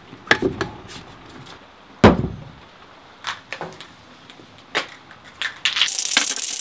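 Aerosol spray-paint can being handled: a few knocks and clatters, the loudest about two seconds in, then about a second of hissing spray near the end that cuts off suddenly.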